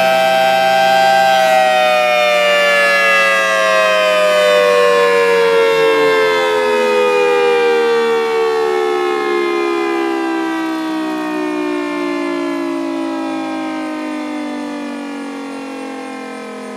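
Outdoor warning siren sounding two notes together, steady at first; about a second in its pitch starts falling and keeps gliding down while it slowly fades, as the siren winds down at the end of its test.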